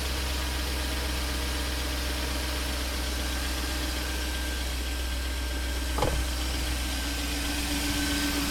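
BMW M60B40 4.0-litre V8 idling shortly after a cold start, with an unwanted engine noise that the owner says goes away after a minute or two of warming up. A brief thump about six seconds in, and a steady whine comes in about a second later.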